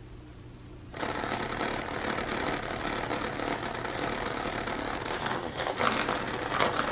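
HexBug Mouse robotic cat toy's small motor starting about a second in and running with a steady buzzing rattle against the cardboard of the grass play box, where the toy is stuck. A few louder clatters come near the end.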